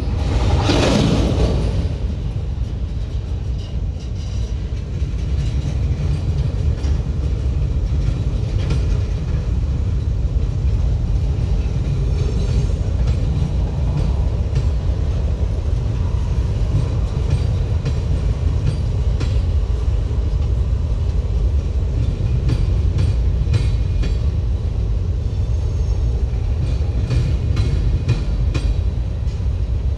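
Freight train rolling by: a steady low rumble of the cars with scattered wheel clicks over the rail joints, swelling briefly louder in the first two seconds.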